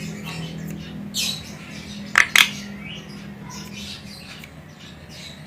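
Female Javan myna (jalak kebo) calling. Soft scratchy chatter runs through, with a short call about a second in and two loud, sharp squawks in quick succession a little after two seconds.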